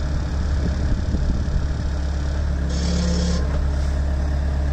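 Bobcat T66 compact track loader's diesel engine running steadily while its lift arms raise the grapple bucket, with a short hiss about three seconds in.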